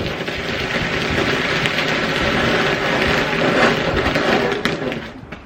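Two garden fireworks burning at once, spraying with a steady loud hiss that cuts off about five seconds in.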